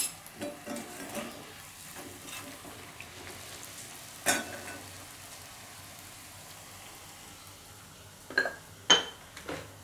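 A wheat parotta deep-frying in a kadai of oil: a steady low sizzle. A few sharp metal clinks cut through it, one about four seconds in and a quick cluster near the end.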